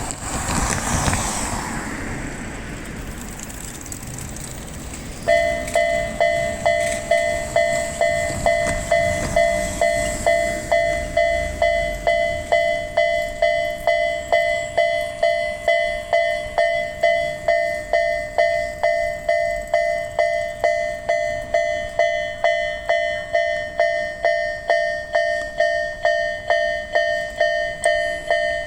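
A Japanese railway level-crossing warning bell starts about five seconds in and dings steadily, about twice a second, signalling an approaching train. Before it starts there is a broad rushing noise.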